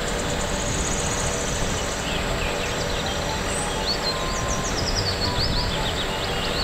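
Van-mounted aerial work platform running steadily as its hydraulic boom swings out and lowers the basket, with birds chirping from about two seconds in.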